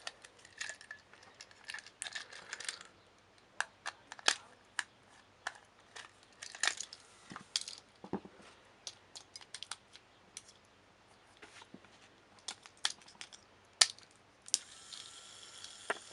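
Batteries being fitted into a Trackmaster Thomas toy engine: a run of sharp plastic clicks and small handling knocks. Near the end the toy's small electric motor switches on with a steady whir and a thin whine.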